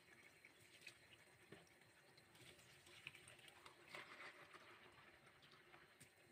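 Near silence: faint scattered clicks and soft rustles of hands handling a plastic food container, with a brief slightly louder rustle about four seconds in.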